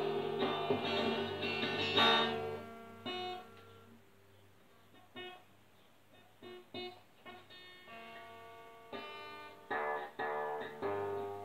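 Acoustic guitar being strummed, its chords ringing for the first two and a half seconds, then a quieter stretch of a few single picked notes before strumming picks up again about nine seconds in.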